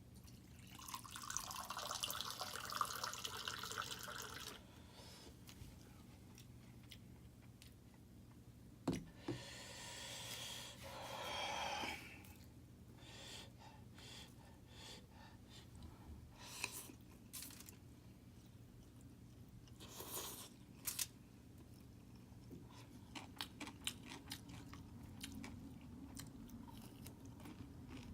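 A person eating: crunchy chewing in two longer stretches, then scattered short clicks and mouth sounds.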